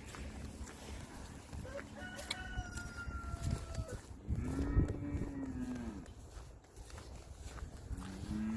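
Cow mooing: one long, loud moo about four seconds in and another starting near the end. The cow is calling while the grass is buried under snow.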